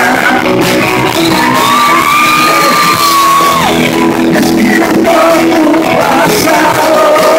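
Live rock band playing loud, with electric guitar and drums under a singer who holds one long shouted note from about a second in, rising into it and dropping off just past halfway.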